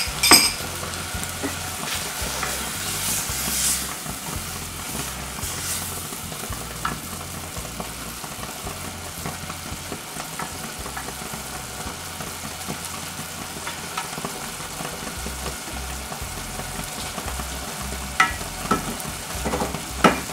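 Cabbage curry with coconut milk sizzling and bubbling in a saucepan while it is stirred with a wooden spoon, which knocks lightly against the pan a few times.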